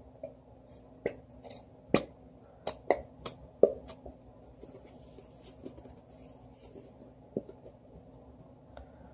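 Slime being squeezed and handled: a run of short, sharp pops and clicks, thickest between one and four seconds in, then fainter now and then.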